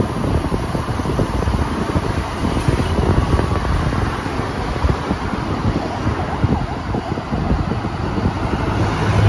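Wind buffeting the microphone and road noise from a moving motorbike in city traffic: a continuous, uneven low rumble with a hiss above it.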